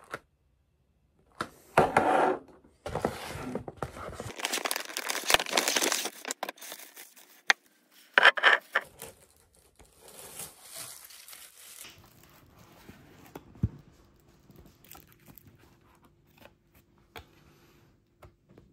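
Wrapping paper rustling, crinkling and tearing in several handled bursts while gifts are unwrapped, loudest in the first half, then only faint handling clicks.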